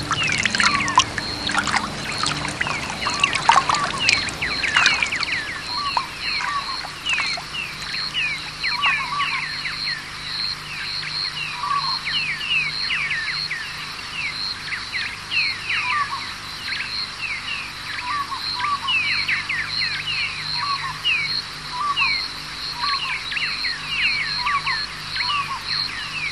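Outdoor bush ambience: many birds giving short, falling chirps over a steady higher-pitched call that pulses about three times a second.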